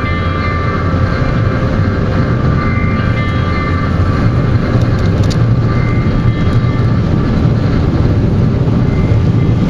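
Steady cabin noise of a moving vehicle: engine and tyre drone with a strong low rumble, heard from inside the car.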